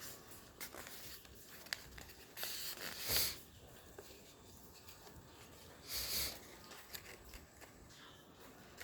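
A sheet of paper rustling and rubbing as it is folded and creased by hand. There are two louder swishes, about three seconds in and about six seconds in, with light taps and crinkles between them.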